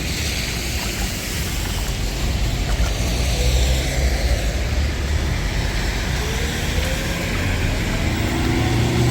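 Street traffic on a rain-soaked, waterlogged road: a steady hiss of tyres through water under a low rumble, with one vehicle's engine rising in pitch near the end.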